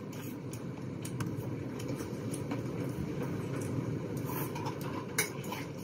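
A steady low background rumble, with a few faint clicks of a metal spoon against a steel plate as the food is scooped up.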